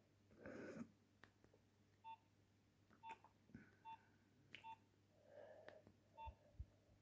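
Nokia 2760 keypad tones: about five short, identical beeps at one pitch, spaced unevenly, with faint clicks of the keys being pressed.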